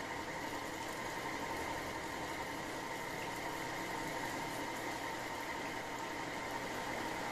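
Steady mechanical hum with a faint, even high whine: a machine running in the background.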